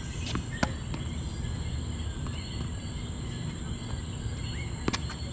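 Tennis rally on a hard court: sharp pops of racket on ball and the ball bouncing, twice within the first second and again twice near the end. Under them a steady high chirring of insects and a low rumble.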